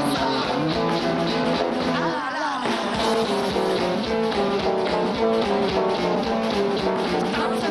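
Punk rock band playing: electric guitar over a steady drum beat.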